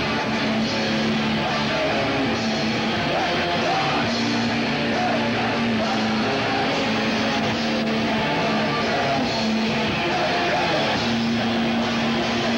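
Loud live rock band playing electric guitar and drums, with sustained guitar notes over steady drumming.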